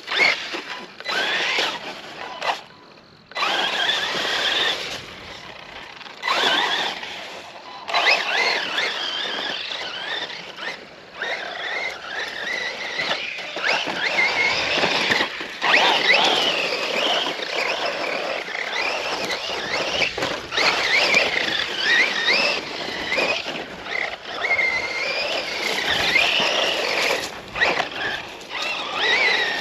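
Losi electric RC truck's brushless motor whining, its pitch rising and falling as the truck speeds up and slows, with short breaks where the throttle is let off, the longest about three seconds in.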